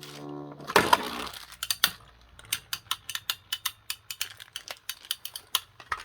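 Ripcord launcher's gear whine, then a burst as two Beyblade spinning tops are released into a plastic stadium about a second in. The rest is rapid, irregular clicks as the metal-and-plastic tops clash against each other and the stadium.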